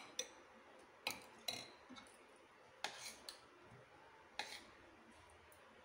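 Metal spoon and fork clinking against ceramic plates and a bowl while someone eats: about seven faint, scattered clinks.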